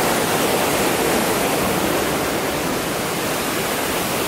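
Steady rushing of falling water from a nearby waterfall, an even wash of sound with no breaks.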